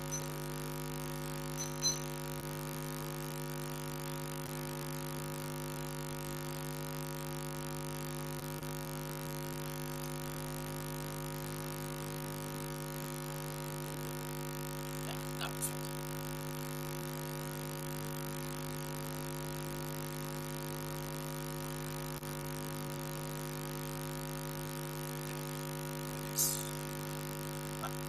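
Steady electrical mains hum, a buzzy stack of even tones, with a few brief clicks about two seconds in, midway and near the end.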